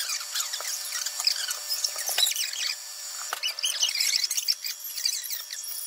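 High-pitched, squeaky chatter of rapid chirps: a sped-up stretch of the recording, with the voices pitched far up into a chipmunk-like squeak and no low sound at all.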